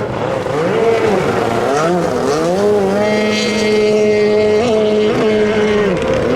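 Racing jet ski engines at full throttle. One engine's pitch climbs, then holds high and steady with a couple of brief blips, and drops away near the end.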